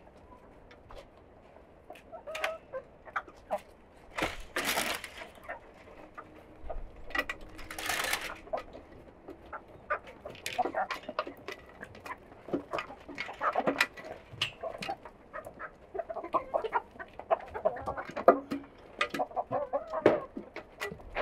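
Domestic chickens clucking, with short calls coming thick and fast, busier in the second half. Two brief rustles come about four and eight seconds in.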